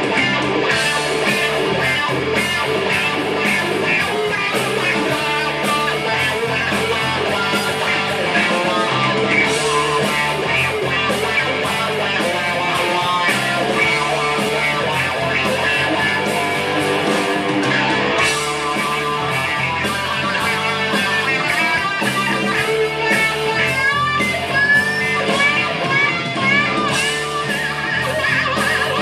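Electric guitar played live through an amplifier, a continuous run of notes with several bent notes near the end.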